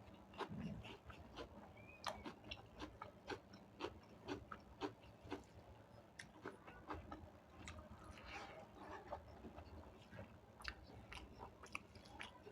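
Person chewing a meal of rice and dal, faint and close to the microphone, with frequent small irregular wet clicks and smacks of the mouth.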